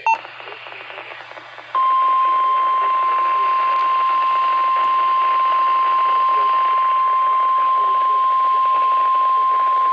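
NOAA Weather Radio's warning alarm, a steady 1050 Hz tone sounded for the weekly test, heard through a Motorola T260 walkie-talkie's weather-radio speaker. About two seconds of radio static come first, then the single loud tone holds unbroken.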